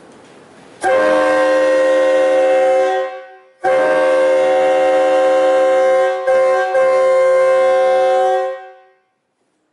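Mutt three-chime train air horn made from K-series bells 1, 2 and 4, sounding a chord of several steady tones. It gives one short blast, then a longer one that is briefly cut twice near its end before dying away.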